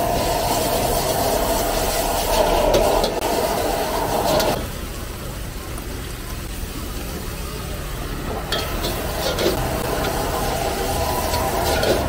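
Noodles stir-frying in a steel wok over a gas burner: a steady rush of burner and sizzle, with a metal ladle scraping and clanking against the wok several times. The noise drops for a few seconds about midway, then rises again.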